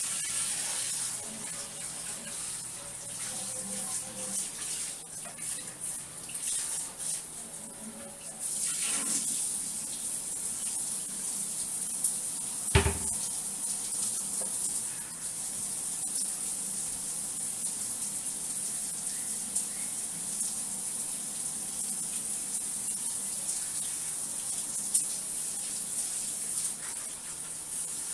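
Kitchen tap running steadily into a sink, with a single sharp knock about halfway through.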